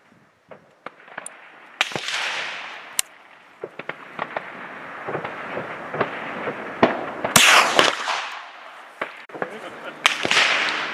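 Martini-action .310 cadet rifle firing: three sharp reports, each trailing off in a long echo over a second or more, the loudest about seven seconds in, with smaller clicks between them.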